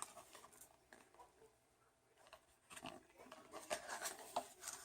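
Faint rustles and light taps of takeout food packaging being handled, quiet at first and then a scatter of small clicks and rustles from about the middle on.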